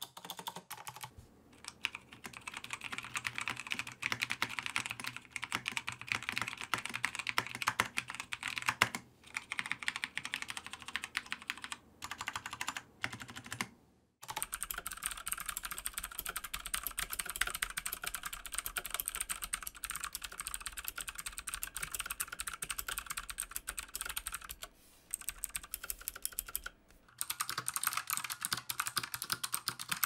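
Fast typing on tactile clicky mechanical keyboard switches. Kailh White switches run for about the first half, then after a short break Outemu Blue switches. Near the end, after another short break, come Light Strike Blue switches.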